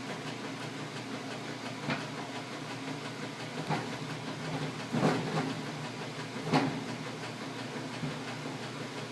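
Washing machine running with a steady rumbling hum. A few short knocks sound over it, the loudest about five and six and a half seconds in.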